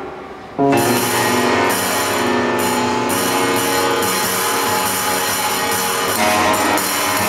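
Grand piano with an object placed on its strings, played live: after a fading sound, a loud chord strikes about half a second in and rings on, many notes sustained under a bright, noisy shimmer. New notes enter near the end.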